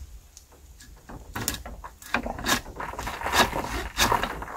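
Wrench turning the screw of a cylinder-liner puller seated on a tractor diesel block: a run of irregular metallic clicks and scrapes starting about a second in, as a liner is drawn out of the block.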